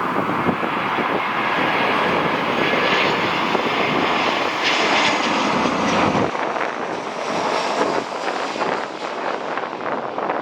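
Jet airliner engines running as a plane passes, a loud rush with a faint high whine. The deep rumble drops away about six seconds in. Gusty wind buffets the microphone.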